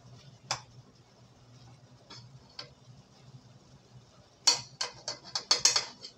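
Metal spoon clinking and scraping against an aluminium cooking pot: a few single light clicks, then a quick run of clinks about four and a half seconds in, the loudest part.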